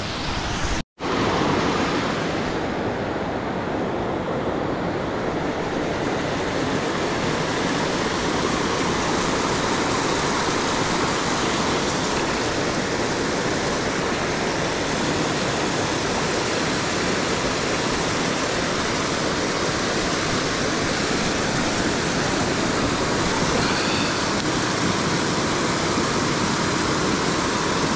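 Steady rush of river water tumbling over low rock ledges in a small cascade close by, cutting out for an instant about a second in.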